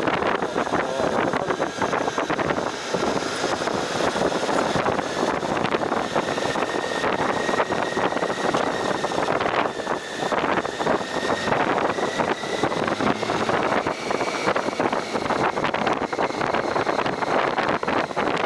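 Wind buffeting the microphone while riding a motorcycle, with engine and road noise underneath and a faint steady whine.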